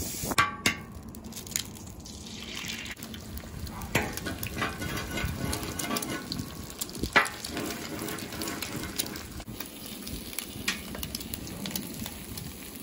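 Eggs sizzling as they fry in steel egg rings on a hot flat-top steel griddle, a steady hiss. A few sharp metal clicks come through it: several as the eggs go down about half a second in, then single taps from the spatula and rings now and then.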